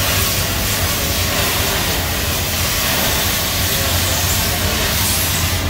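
Cutting torch burning into the steel wall of a safe: a steady, loud hissing rush of the flame and gas jet, with a constant low hum underneath.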